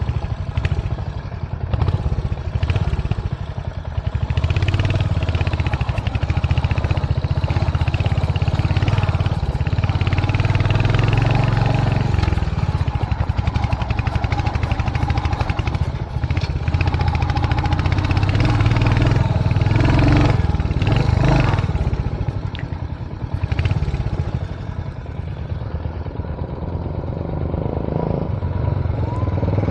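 Motorcycle engine labouring at low speed up a rough, steep off-road track, with occasional knocks and rattles from the bike over the bumps. The engine drops off for a few seconds about three-quarters of the way through, then picks up again.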